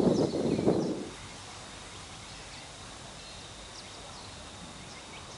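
Crunching, rustling footsteps on dry leaf litter for about the first second, then stopping. After that, quiet outdoor background with a few short, high bird chirps.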